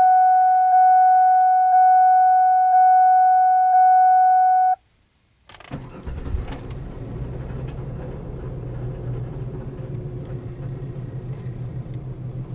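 Ford Taurus warning chime sounding about once a second, stopping just before 5 s, then the starter cranks and the engine catches about six seconds in and settles into a steady idle, heard from inside the closed cabin. Under the idle runs a rattle that the owner suspects comes from the exhaust.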